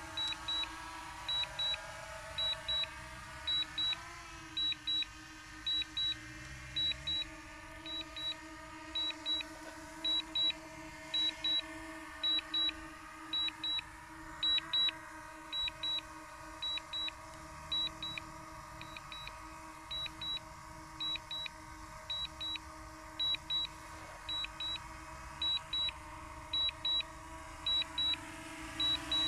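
DJI Mini 2's propellers humming steadily as the drone descends and hovers just above the ground during an automatic landing, the pitch wavering briefly a few times. Over it, the remote controller gives a short high double beep about once a second, as it does while the drone is auto-landing.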